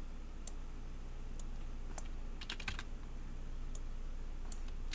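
Computer keyboard keys clicking now and then, single taps and a short run of several about halfway through, over a low steady hum.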